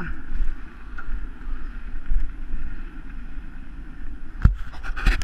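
Wind buffeting a helmet camera's microphone on a mountain bike descent down a dirt trail, a steady low rumble with rattle from the bike. A few sharp knocks near the end.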